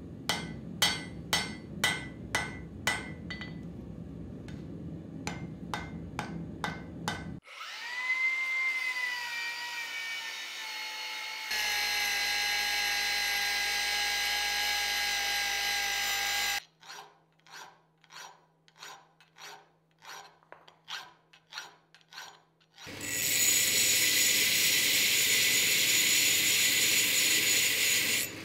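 Hand hammer striking a red-hot steel axe head on an anvil, about two blows a second, then an angle grinder spinning up with a rising whine and grinding the steel with a steady noise. A second, softer run of hammer blows follows, and near the end a belt grinder runs loudly against the axe steel.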